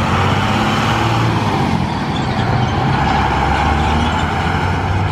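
A motor vehicle running steadily, a low engine hum under a broad rush of road noise.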